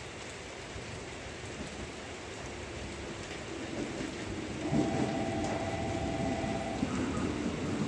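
Steady rain, with a 415 series electric train approaching and growing louder; its rumble rises sharply about halfway through. A steady two-pitch tone sounds for about two seconds at the same time.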